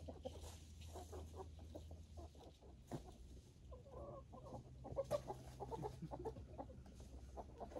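Chickens clucking: a run of short, quick clucks, busiest about four to five seconds in.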